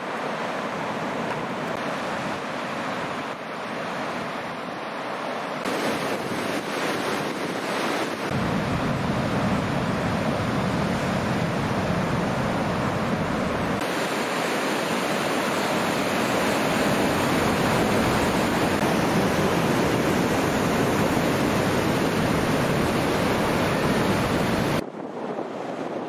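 Ocean surf washing and breaking, with wind buffeting the microphone. The sound changes abruptly a few times where the recording cuts.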